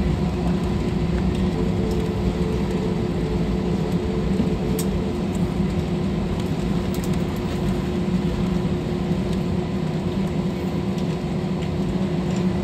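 Steady cabin noise inside an airliner just after landing: a low rumble and hum of engines and air systems, with a steady drone running through it.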